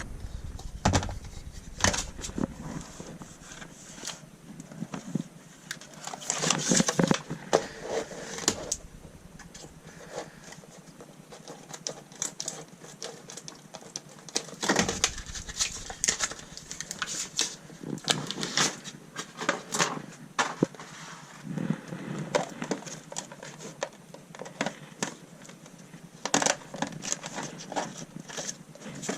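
Irregular crackling, rustling and knocks of bitumen sound-deadening mats being handled and pressed onto a car floor.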